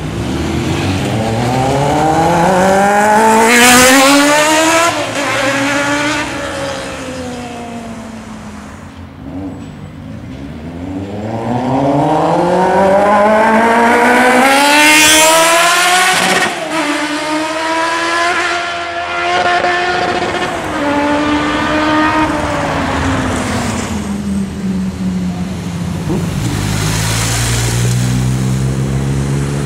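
Kawasaki Z800's inline-four engine revving hard as the motorcycle accelerates, its pitch climbing to a peak about four seconds in and then dropping away. A second hard acceleration climbs from about ten seconds in, peaks around sixteen seconds and then falls off. Near the end another motorcycle engine runs at a lower, steadier note.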